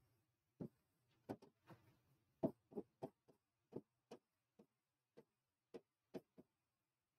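Faint, irregular clicks and taps of chalk on a blackboard as words are written out, about two a second.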